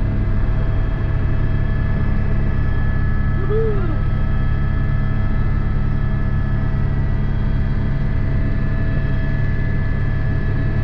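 Helicopter running steadily, a constant turbine whine of several steady tones over a heavy rotor and engine rumble.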